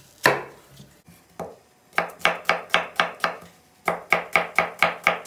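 Kitchen knife chopping onion on a wooden cutting board: two single cuts, then two runs of quick chops, about five a second, with a short pause between them.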